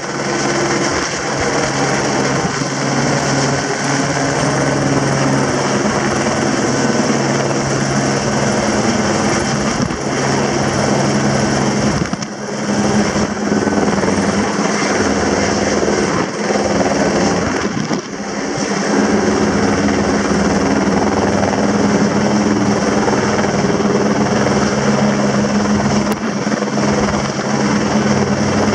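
Helicopter hovering overhead with a load slung on a long line: loud, steady rotor and engine noise with a low hum, dipping briefly twice midway.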